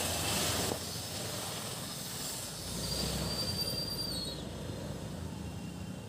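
Road traffic noise with a high-pitched squeal held for about two seconds, dropping in pitch as it stops: a vehicle's brakes squealing.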